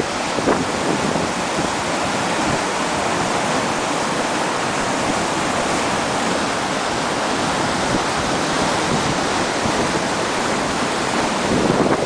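A muddy river in full flood, its fast churning water rushing steadily.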